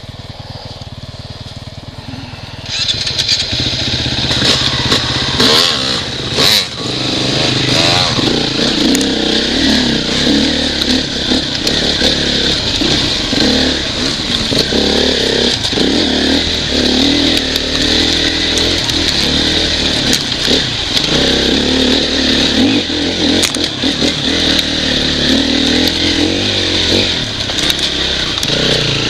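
Off-road motorcycle engine ticking over quietly, then opening up about three seconds in and running hard under constantly changing throttle as the bike climbs a rocky trail, with frequent knocks and clatter.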